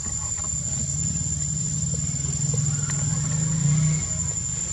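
A steady high-pitched insect drone over a low steady hum that swells slightly near the end.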